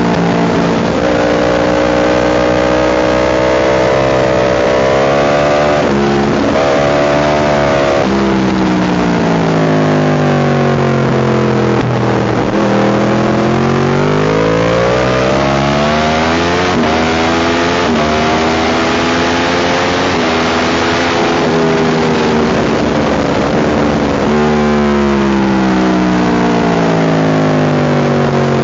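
Motorcycle engine at track speed, heard from on the bike. The revs climb and drop suddenly with gear changes, fall away for a few seconds as it slows for corners, then climb again as it accelerates out.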